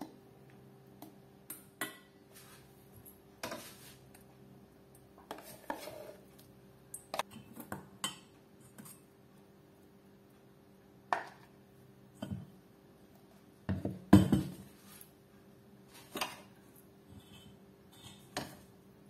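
A spoon scraping and tapping against a stainless steel mixing bowl and a plastic food-processor bowl while thick blended taro paste is scooped out. Irregular clinks and knocks, with one louder knock about two-thirds of the way through.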